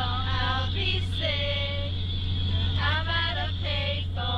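High voice singing karaoke in held, wavering notes with short breaks, over a loud steady low hum.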